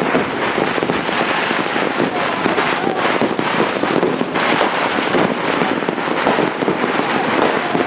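Dense, continuous firecrackers and fireworks, countless cracks and pops overlapping into an unbroken crackling din with no pauses.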